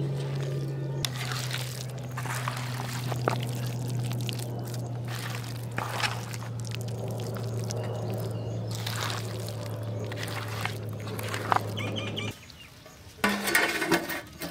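Wet squelching of hands kneading rabbit meat in a thick spiced gram-flour batter in a steel bowl, over a steady low hum that stops suddenly about twelve seconds in. Near the end a large steel plate clatters and rings briefly as it is handled on the ground.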